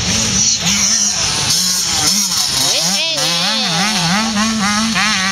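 Motocross dirt bike engine revving up and down as it rides the rutted sand track, its pitch rising and falling in quick waves, about twice a second in the second half.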